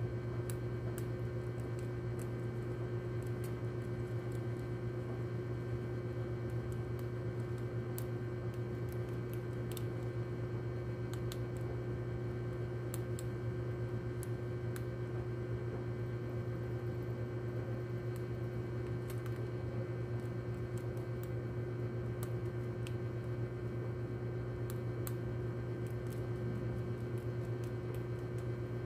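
A steady low electrical hum, with faint, irregular small clicks and ticks from rats gnawing and scrabbling on cardboard at a pile of rat-poison bait.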